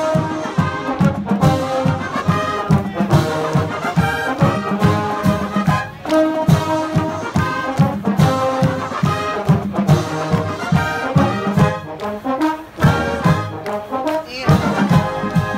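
Marching band playing in the stands: trumpets and trombones playing a loud tune over a regular drum beat.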